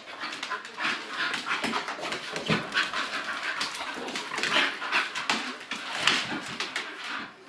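Two English bull terriers play-wrestling: a dense, irregular jumble of short noisy dog sounds and scuffling, loudest about six seconds in.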